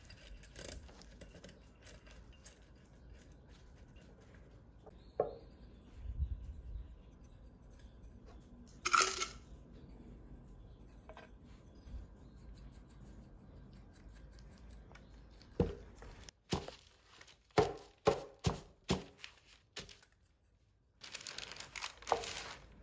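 Silicone pastry brush rubbing butter into the cups of a metal tigre mold pan, then sugar sprinkled in. Near the middle the pan is knocked sharply about six times, and near the end there is a gritty rustle as the sugar is shaken out to leave a thin coating.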